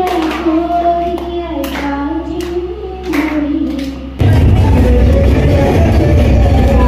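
A girl singing a solo melody into a microphone. About four seconds in it cuts abruptly to loud, bass-heavy music.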